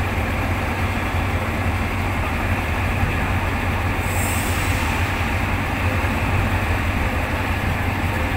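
Alsthom diesel-electric locomotive running with a steady low engine rumble. A brief high hiss comes about four seconds in.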